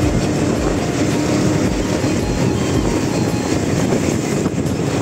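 Steady rumble of a vehicle moving along a road: engine and tyre noise.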